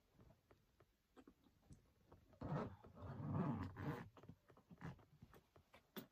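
A person straining as they lean their weight on a packed hard-shell suitcase to force it shut: scattered small clicks and rustles, with a louder stretch of effortful noise from about two and a half to four seconds in.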